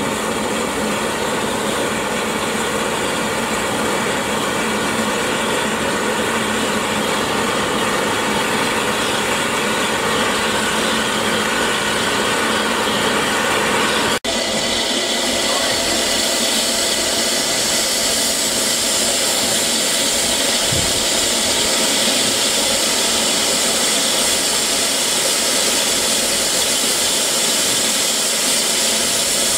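Maunsell S15 class 4-6-0 steam locomotive standing with steam hissing steadily. About halfway through the sound breaks off for an instant, and after that the hiss is brighter.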